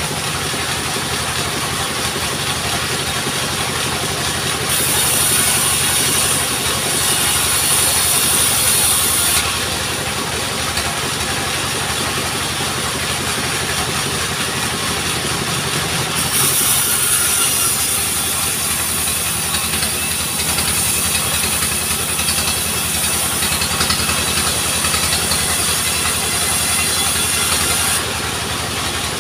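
Engine-driven log sawmill running steadily, with the saw cutting through wood twice: from about five to nine seconds in, and again from about sixteen seconds in until near the end, each cut adding a high hiss over the engine's steady running.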